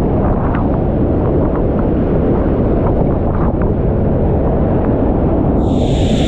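Loud, steady rush of Niagara's Bridal Veil Falls crashing onto the boulders close by, with spray and wind buffeting the microphone. Near the end a brighter hiss with a thin high whine joins in.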